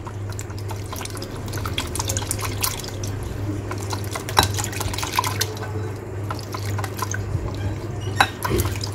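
Balloon whisk with silicone-coated wires beating runny crepe batter of milk, eggs and flour in a bowl: wet sloshing and splashing with many irregular light clicks, as the batter is whisked smooth of lumps. A steady low hum runs underneath.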